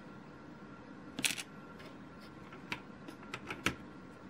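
Plastic Lego pieces clicking and tapping as small plates are handled and pressed onto the model: a few sharp clicks, the loudest about a second in and a quicker cluster of smaller ones near the end.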